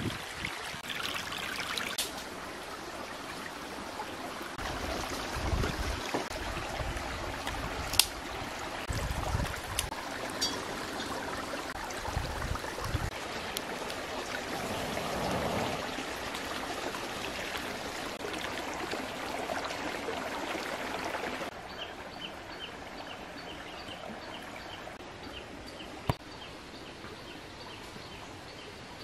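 Shallow stream running over rocks, a steady rush of water with a few sharp clicks. In the last third a faint high chirping repeats several times a second.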